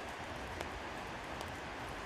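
Steady rain falling through the rain-forest canopy, an even hiss, with a couple of sharp ticks about half a second and a second and a half in.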